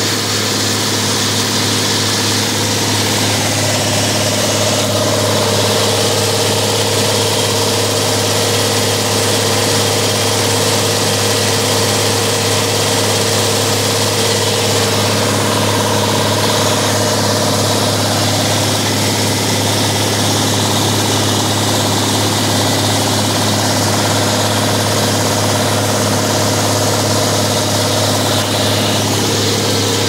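Tractor engine running steadily under load while mowing hay with a disc mower, a constant deep hum with no change in speed.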